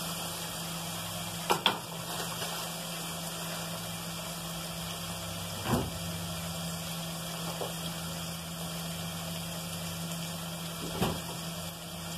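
Chopped onion and garlic frying in oil in an aluminium pot, a steady sizzle over a low hum, with a spoon knocking lightly against the pot three times.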